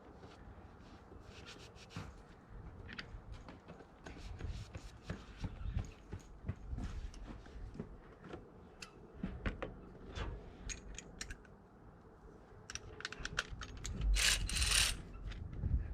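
Scattered clicks, knocks and scrapes of hand tools and metal parts being handled, with a louder rasping burst about a second long near the end.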